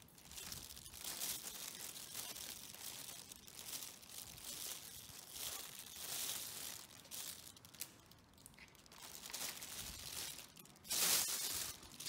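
Rustling plastic crinkling and chain links clinking as an old motorcycle drive chain is pulled off around the rear sprocket, in irregular bursts, loudest about a second before the end.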